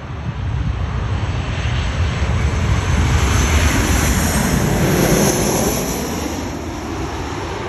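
Jet airliner engine noise, a loud rushing roar that swells to a peak about four to five seconds in and then eases off.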